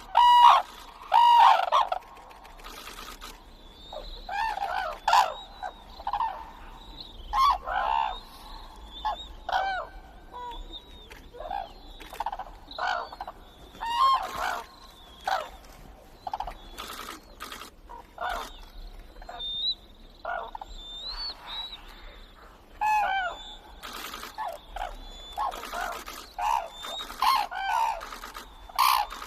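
Red-crowned cranes calling, many short, ringing calls from several birds overlapping one after another, with fainter, higher thin calls in between.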